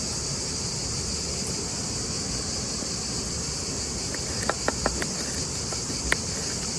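Steady, high-pitched chorus of insects such as crickets, with a few sharp clicks about two-thirds of the way through.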